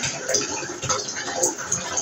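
Garbled, choppy voice-like fragments over a steady noisy hiss, breaking every fraction of a second, which the uploader takes for spirit voices saying 'maybe we'll stop him, Edward, don't talk'.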